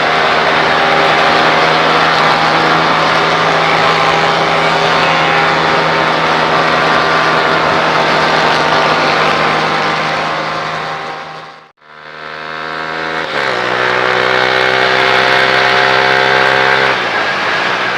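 Motorcycle engine running at a steady road speed with heavy wind noise. About two-thirds through, the sound fades out and back in. Then the engine note drops in pitch twice as the bike slows.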